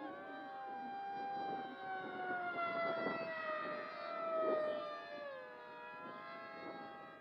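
Several FPV racing wings flying the course together, their electric motors and propellers whining at different pitches that slowly slide up and down as they pass; the strongest whine drops in pitch a little after halfway.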